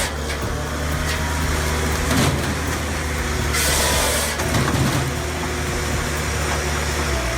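Firewood processor's engine running steadily, with a burst of hiss about three and a half seconds in.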